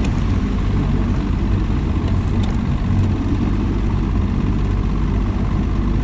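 Boat motor running steadily under way, a constant low engine rumble with rushing noise over it.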